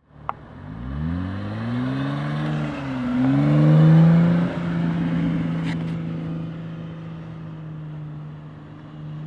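2012 Jeep Wrangler Rubicon's Pentastar V6 through a Magnaflow exhaust, accelerating in the sand: the engine note climbs, dips briefly about three seconds in, climbs again and is loudest as it passes at about four seconds, then holds a steady note that fades as it drives away.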